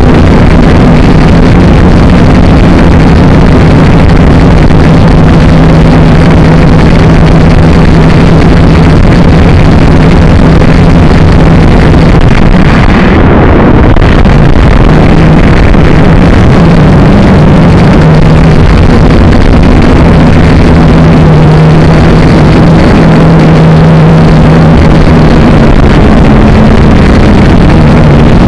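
Drone's electric motors and propellers running close to its onboard microphone, very loud, with a steady hum whose pitch shifts as the throttle changes. About halfway through the sound briefly dulls.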